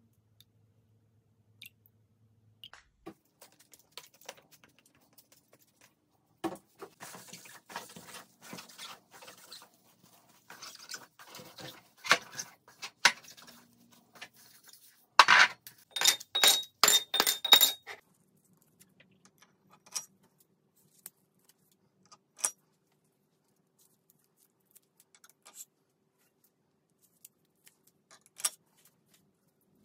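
Candle jars and metal tins being handled on a wooden table: scattered clicks and rustling, then a run of rapid ringing clinks about halfway through. Near the end, single light clicks come as wicks are set into the jars.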